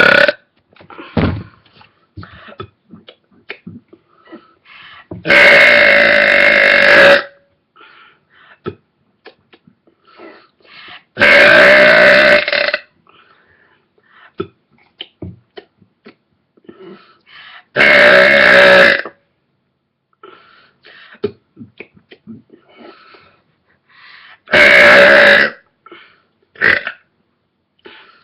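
A person belching loudly on purpose, four long belches of one to two seconds each at a steady pitch, about six seconds apart, with faint clicks in between.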